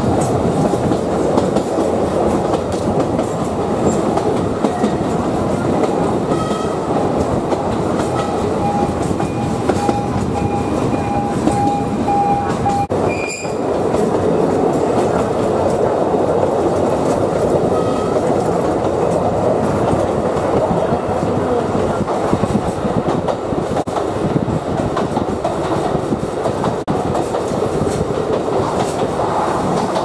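Alishan Forest Railway train running on its narrow-gauge track, a steady rumble with the wheels clacking. From about six seconds in a thin, steady wheel squeal rises over it, then stops sharply with a knock about thirteen seconds in.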